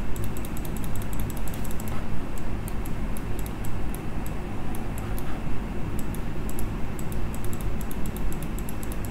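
Computer keyboard typing and mouse clicks, in irregular clusters of short clicks, over a steady low hum.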